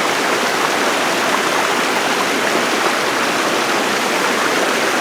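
River water rushing in a steady, loud, unbroken stream.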